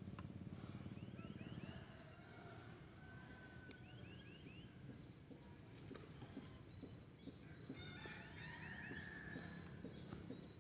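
Faint bird calls: short runs of four or five quick rising chirps, repeated every few seconds, with a few longer whistled notes in between, over a quiet outdoor background.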